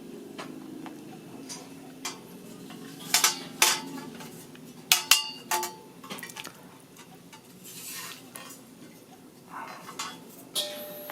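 Metal parts of a flat-pack microwave rack clinking and knocking against each other as they are handled, with a cluster of sharp clinks that ring briefly about three to six seconds in and a few softer knocks later.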